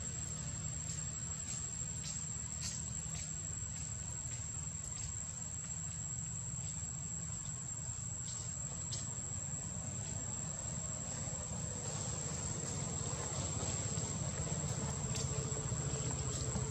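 Steady high-pitched insect drone holding one unbroken tone, over a low steady rumble, with a few faint ticks.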